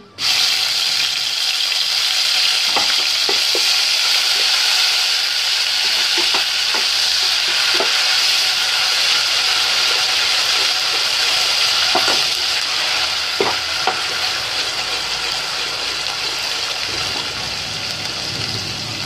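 Ginger-garlic, green chili and cumin paste sizzling loudly in hot oil with whole spices in a steel pot, the sizzle starting suddenly as the paste goes in and easing off a little near the end. A steel slotted spoon gives a few scattered taps and scrapes against the pot as it is stirred.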